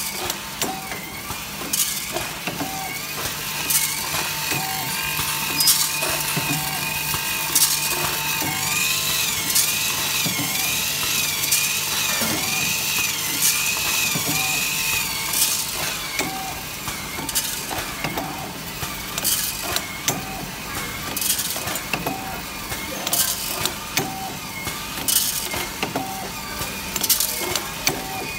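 Automatic triangle-bag snack packing machine running, its sealing and forming mechanism clacking sharply every second or two over a steady machine hum, with a warbling whine through the middle.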